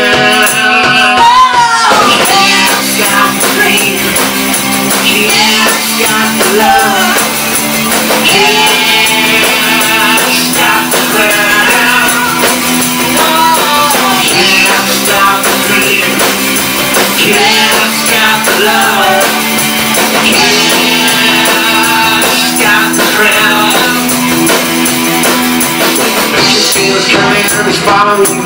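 Live indie rock band playing an instrumental passage: electric guitars, bass and drums, with a wavering, bending lead melody over a held low note that changes every few seconds.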